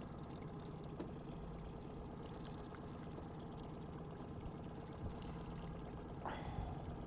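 Water lapping against an aluminum boat hull over a low, steady motor hum, while a hooked fish is reeled in. A short, louder sound comes a little after six seconds in.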